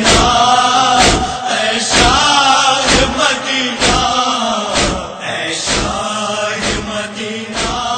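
A male voice chanting a noha, the Urdu Shia lament, in long drawn-out phrases, with a sharp beat about once a second.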